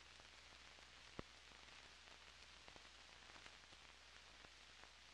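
Near silence: the faint hiss and light crackle of an old film soundtrack, over a low steady hum, with a single click about a second in.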